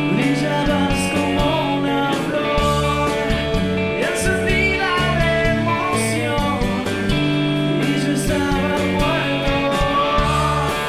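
Rock band playing a song: electric guitars over bass and drums, with singing.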